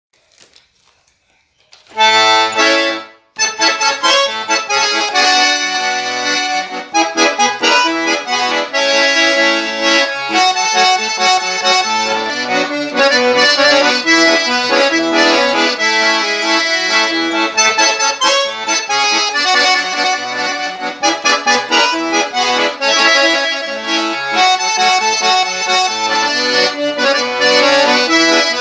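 Accordion (sanfona) playing a tune, starting about two seconds in, with a brief pause just after, then playing on without a break.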